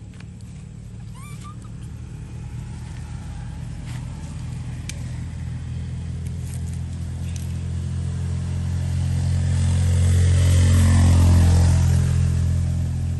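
A motor vehicle's engine passing by: a steady low hum that grows gradually louder, is loudest about eleven seconds in, then begins to fade.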